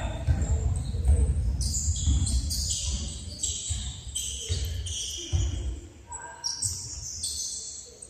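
Basketball game play on a wooden gym floor: a ball bouncing in repeated thuds, with high-pitched squeaks from players' shoes and indistinct voices in the hall.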